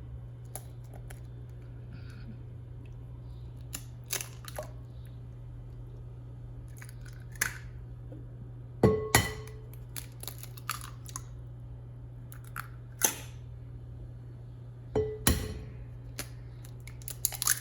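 Eggs being cracked against a mixing bowl: several sharp taps and clicks a few seconds apart, over a steady low hum.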